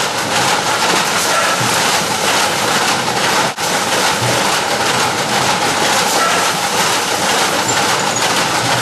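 Giro PDG-2s automatic fruit weighing machine running with oranges on its belts: a steady, dense mechanical rattle. The sound drops out for a moment about three and a half seconds in.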